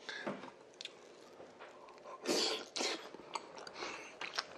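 A man coughing with food in his mouth: a short cough about two seconds in, then a smaller one just after, with faint chewing and mouth clicks around them.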